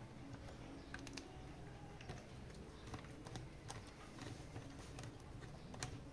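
Faint, irregular light clicks and taps of hand tools and small parts being handled during assembly work.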